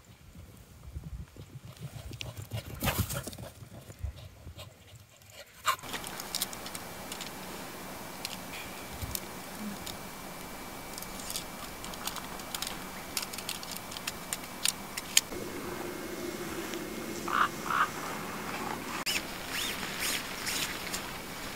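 Scattered clicks and light rustling from a small tent being pitched on grass, over a steady outdoor hiss. The first few seconds hold a low, uneven rumble of wind on the microphone instead.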